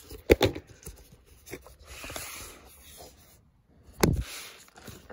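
Plastic ring binders and album pages being handled and shifted: a few sharp clicks and knocks, a stretch of rustling and scraping about two seconds in, and a louder knock about four seconds in as a binder cover is lifted.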